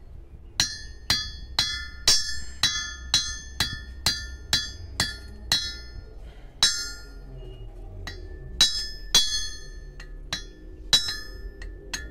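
Hammer blows on a metal piece held on a small metal stand, each strike ringing. Steady at about two a second, then a break of a couple of seconds past the middle before the blows resume less evenly.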